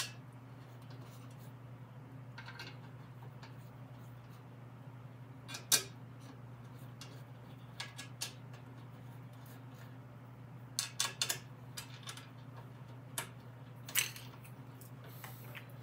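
Small metal bolts clinking as they are picked from a metal parts tray and started by hand into a steel fender, a few scattered clicks with a short cluster about two thirds of the way in. A steady low hum runs underneath.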